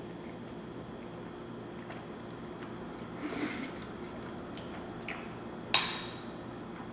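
Close-up eating sounds of a mouthful of cheesy chicken spaghetti casserole being chewed, with a short wet mouth noise about three seconds in. Near the end a sharp clink as a fork is set down in the glass baking dish.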